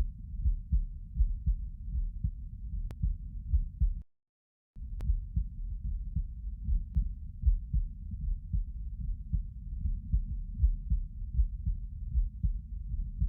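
Human heartbeat recorded close up: a steady run of low, dull thumps. The sound cuts out to silence for under a second about four seconds in.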